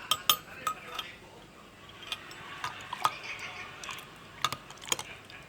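A spoon clinking against a cup in irregular light taps, several quick ones in the first second and then scattered single ones.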